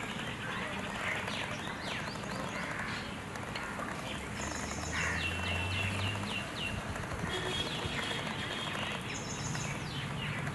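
Birds chirping outdoors: many short, quick chirps that slide downward, over a steady background hiss, with bursts of high repeated notes about four and nine seconds in.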